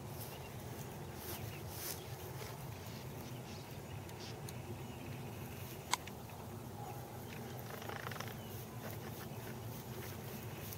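Faint outdoor background noise with light scattered rustles and ticks, and one sharp click about six seconds in.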